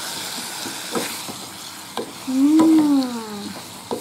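Sliced bitter gourd sizzling in a frying pan as a wooden spatula stirs it, with a few sharp taps and scrapes of the spatula against the pan. About halfway through, a single drawn-out tone that rises and then falls for about a second is the loudest sound.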